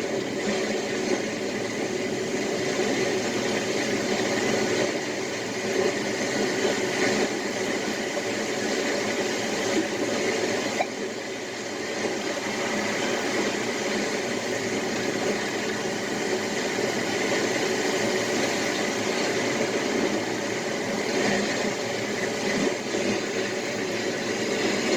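Ocean waves giving a steady, rushing wash with small rises and falls in loudness and a brief lull about eleven seconds in.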